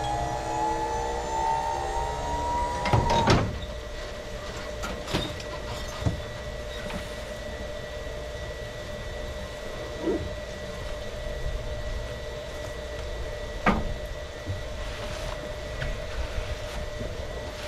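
A small electric motor whines, rising slowly in pitch, then cuts off with a clatter about three seconds in. After that a steady hum remains, with a few scattered knocks and clunks.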